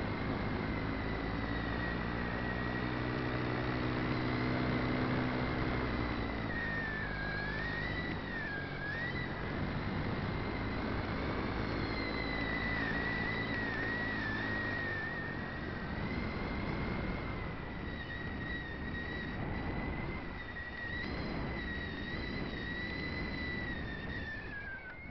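Electric motor of a radio-controlled model aircraft whining steadily over a rush of air noise, its pitch wavering with the throttle and dropping near the end as it comes down to land. A lower drone runs underneath through roughly the first half.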